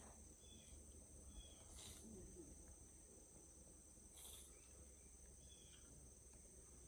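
Near silence with a faint, steady high-pitched insect chorus of crickets, holding two pitches throughout. A few faint short chirps come through, with soft hissy swells about every two and a half seconds.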